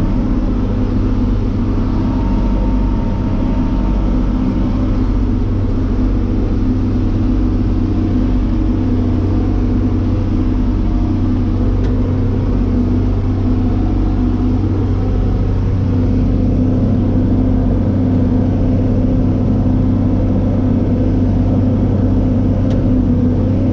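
Tractor engine running steadily under load, pulling a round baler that is baling a windrow of corn fodder.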